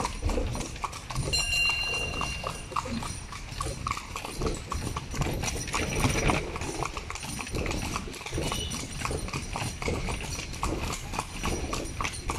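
Horse's hooves clip-clopping on a paved road as it pulls a carriage, a steady run of sharp hoof knocks.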